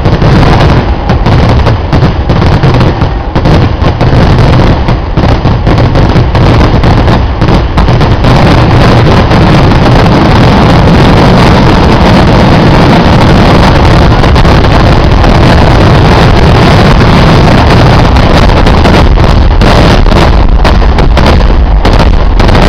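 Kerala temple-festival fireworks barrage: explosions so rapid that they merge into one continuous din, with more separate bangs at the start and near the end. It is loud enough to overload the recording throughout.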